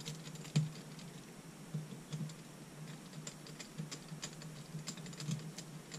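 Small Phillips screwdriver turning tiny screws out of a plastic mini-drone casing: scattered light clicks and ticks, with one sharper click about half a second in.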